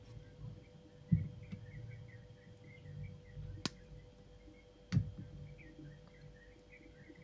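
Quiet handling sounds of wire-wrapping with jewelry pliers and silver wire: two soft bumps and two sharp small clicks, over a steady low hum.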